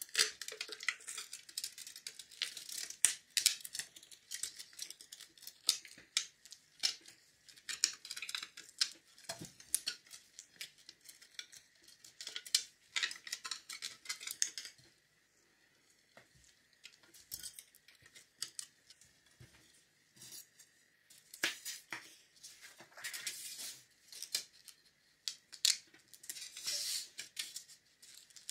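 Handling noise: irregular clicks, scrapes and rustles as a thin metal plate is worked against a glass jar of water and bare wire is twisted and wrapped onto a thin metal sheet. A brief lull comes about halfway through before the clicking and crinkling resume.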